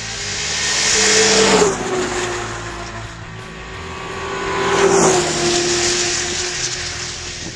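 Two snowmobiles passing close by at speed, one after the other, the first a little under two seconds in and the second about five seconds in. Each engine's sound grows louder as it approaches, and its pitch drops as it goes by.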